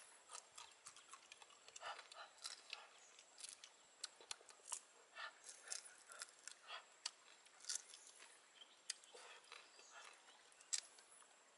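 Faint, irregular crackling and crunching: a small crab's shell being bitten and broken apart by hand, with chewing.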